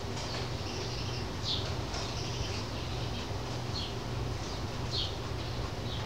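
House sparrows chirping, short chirps coming every half second to second or so, over a steady low hum.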